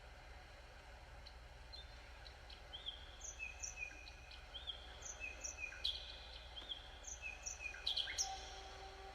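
Bird-like chirps and short whistled glides, played by a heart-driven biofeedback sound device, over a steady low hum. The chirps start sparse about a second in and grow busier, with the same calls recurring in a loose repeating pattern.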